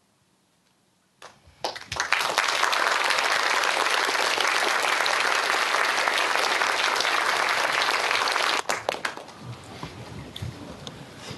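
A room full of people applauding: it starts about a second in, swells quickly into dense, steady clapping, then dies away about nine seconds in to a few scattered claps.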